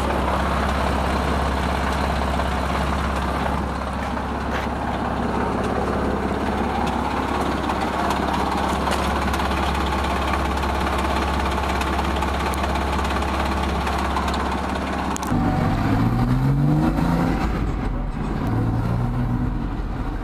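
Porsche 987 Boxster's 2.7-litre flat-six engine idling steadily, then revved twice in quick succession about three-quarters of the way through and held briefly at higher revs. The engine is listed as having a rattle.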